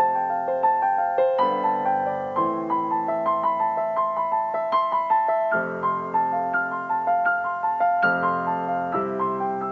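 Background piano music: a steady stream of struck notes over held chords, the chords changing every second or few.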